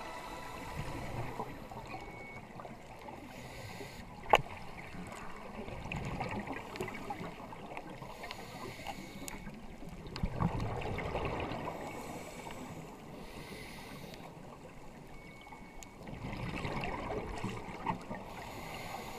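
Underwater sound of scuba divers: exhaled regulator bubbles rumbling in bursts every few seconds. A sharp click comes about four seconds in and a smaller knock about ten seconds in.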